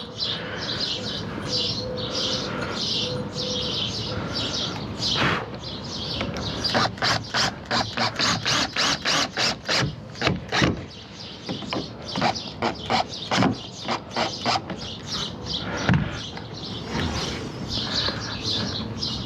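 Birds chirping in the background, with a run of quick sharp clicks or knocks, several a second, through the middle.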